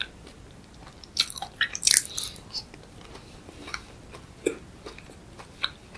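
Close-miked eating: biting into and chewing a strawberry-and-fresh-cream dessert. A dense run of loud, crisp bite sounds comes about a second in, then sparse soft chewing clicks.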